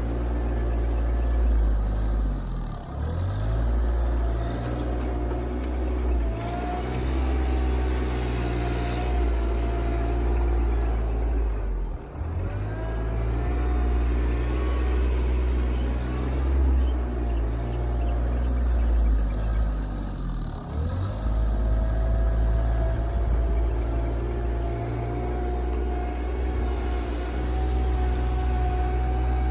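RK24 compact tractor engine running steadily while moving mulch, its note dipping and climbing back three times.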